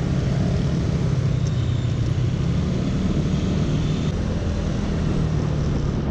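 Yamaha Mio Sporty scooter's small single-cylinder four-stroke engine running steadily while riding, under a steady rush of wind and road noise.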